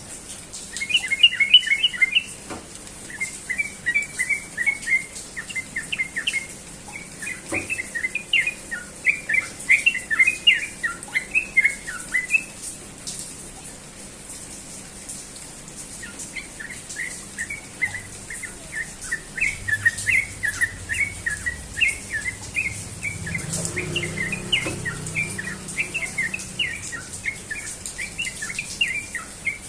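Yellow-vented bulbul singing in long runs of rapid, bubbly chattering notes. It pauses for a few seconds about halfway through, then sings on.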